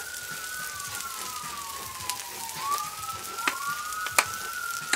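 An emergency-vehicle siren wailing, falling slowly and rising again, over the steady hiss of onions sizzling on a hot flat-top griddle, with a few sharp spatter pops.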